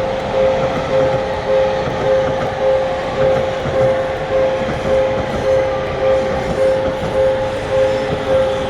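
Japanese railroad crossing's electronic warning bell ringing two-toned in a steady, even rhythm, over the noise of a passing train.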